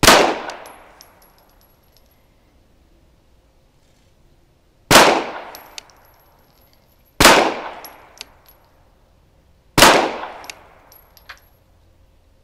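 Four handgun shots, the first right at the start, then one about five seconds in and two more roughly two and a half seconds apart. Each shot is followed by about a second of echo, and a few faint small clicks follow the shots.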